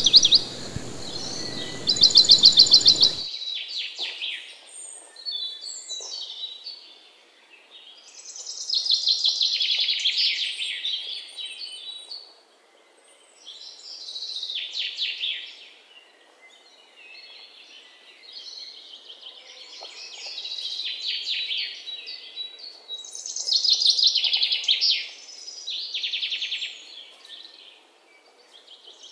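Songbirds chirping and trilling in repeated bursts of a few seconds each, with short gaps between them. For about the first three seconds a steady rushing noise runs underneath, then cuts off.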